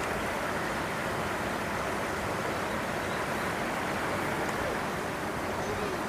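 Steady rushing background noise with faint, distant voices murmuring through it.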